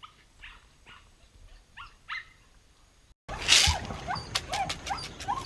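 Short, high-pitched animal yips and whines, a few a second. About three seconds in the sound cuts off abruptly, and louder calls carry on over a noisy background with sharp clicks.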